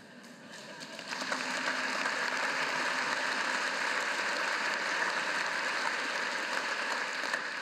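A large audience applauding in a big hall, the clapping swelling over the first second or so and then holding steady.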